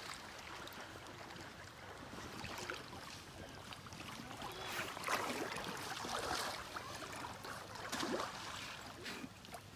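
River water splashing in the shallows at the bank as a long-handled landing net is dipped and worked through it, with sharper splashes about five seconds in and again near eight seconds.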